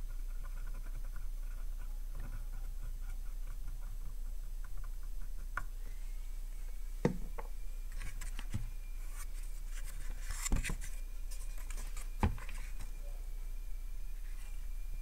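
Cotton swab scrubbing a circuit board around freshly redone solder joints, a faint scratchy patter over the first few seconds, followed by a few light knocks and clicks from handling, over a steady low electrical hum.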